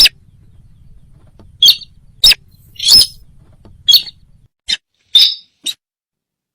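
Lure recording of the sintar bird's call: a series of short, sharp, loud calls, about eight of them at irregular intervals, each well under half a second long.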